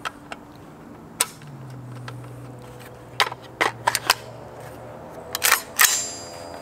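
Sharp metallic clicks and clacks from hands working an AR-15-style rifle (Argos Ordnance A115). There are two at the start, one about a second in, a quick run of about five a few seconds in, and the loudest cluster near the end.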